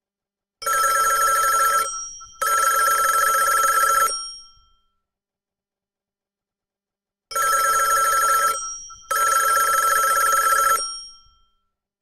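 Classic British landline telephone bell ringing in the UK double-ring pattern: two pairs of rings, with about three seconds of silence between the pairs. The bell tone trails off briefly after each ring.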